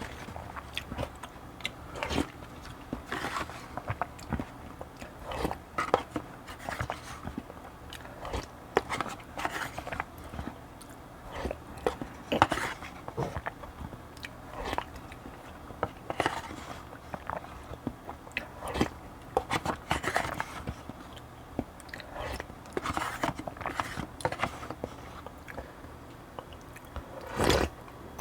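Close-miked eating: steady chewing with wet mouth sounds and small clicks, typical of a mukbang of barley bibimbap and cheonggukjang stew. A louder, longer burst comes near the end.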